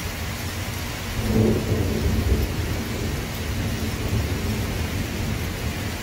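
Steady rain falling, with a roll of thunder that swells about a second in and rumbles on for a couple of seconds before settling back under the rain.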